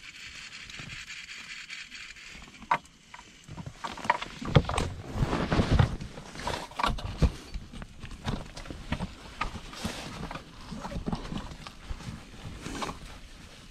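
Handling noise from an action camera being snatched up and carried by hand: rustling with a string of sharp knocks and clunks against gear, busiest in the middle.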